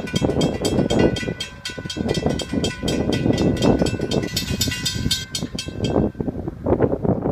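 Railroad crossing warning bell ringing in a fast, even series of strikes, about four a second, while the crossing gates lower. The ringing stops about six seconds in, once the gates are down. A low, uneven rushing noise runs beneath it.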